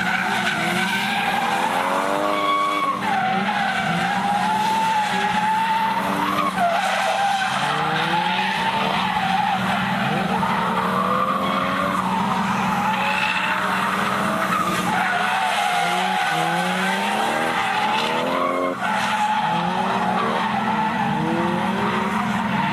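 Car drifting in circles: a continuous wavering tyre squeal, with the engine revving up again and again underneath as the driver keeps the rear wheels spinning.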